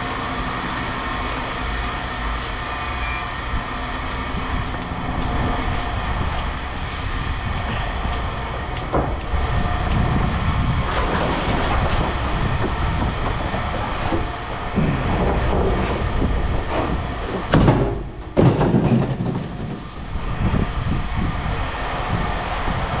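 Heavy scrap-yard machinery running steadily, with loud clanks and scraping of metal scrap about 17 to 19 seconds in.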